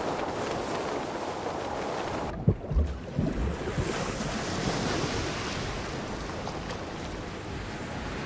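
Rushing wash of ocean surf with wind. About two seconds in the sound cuts sharply and a few deep low thumps come through before the rushing noise resumes.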